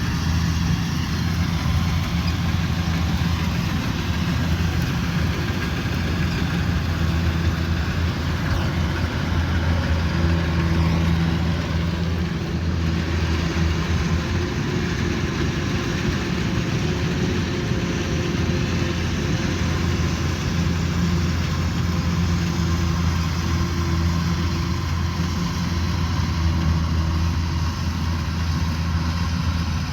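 Kubota DC105X combine harvester's diesel engine running steadily at working speed while harvesting rice, a constant low hum that swells slightly now and then.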